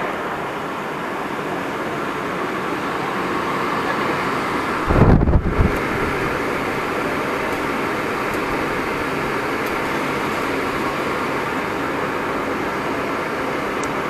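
Steady rushing ambient noise, like air conditioning in a large indoor hall. A brief low rumble about five seconds in.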